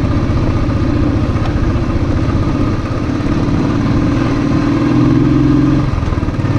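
Royal Enfield motorcycle engine running steadily under way, heard from the rider's seat. The engine note strengthens about halfway through and eases off shortly before the end.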